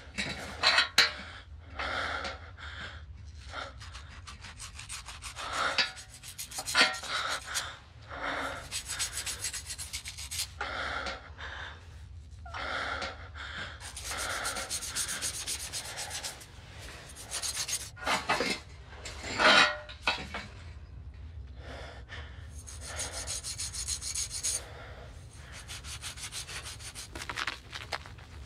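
A blade scraping wet hair off a scalp as a head is shaved by hand: a long series of short rasping strokes, some louder than others.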